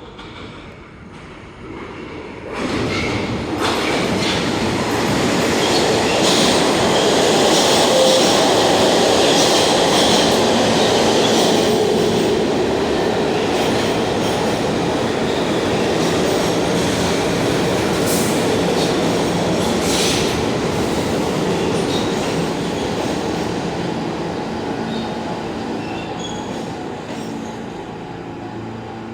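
New York City subway train running through the station: a loud steady rumble and rattle of wheels on rail, with wheel squeal and a few sharp clicks over the rail joints, building up sharply a couple of seconds in and slowly fading near the end.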